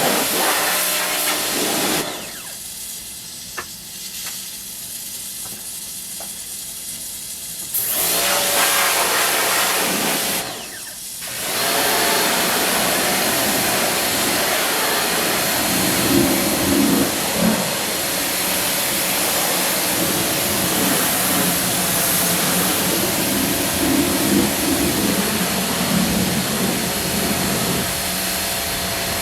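Pressure washer spraying with a steady hiss over the machine's hum. The spray cuts out for several seconds about two seconds in and again briefly around eleven seconds, then resumes.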